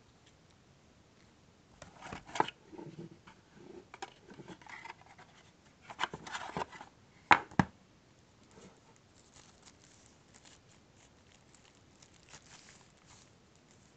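Hands handling smartphone packaging and accessories: plastic crinkling and rubbing with irregular clicks. The two loudest sharp knocks come about two and a half and about seven seconds in, followed by fainter rustling.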